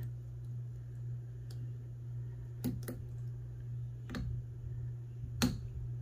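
A few sharp metallic clicks from a lock pick working inside a 100-year-old Yale & Towne push-style padlock: a quick pair a little under three seconds in, another just after four seconds, and the loudest about five and a half seconds in. A steady low hum runs underneath.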